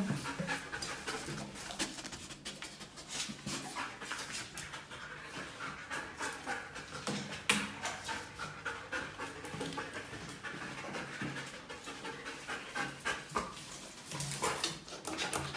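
German Shepherd-type detection dog panting quickly and steadily as it works a search, with a few sharp taps along the way.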